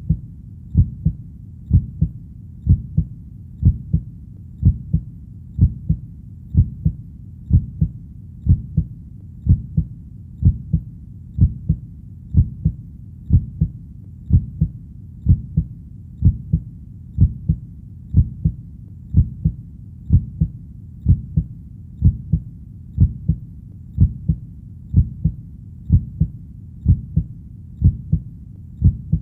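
Heartbeat: double thumps in an even rhythm, about one beat a second.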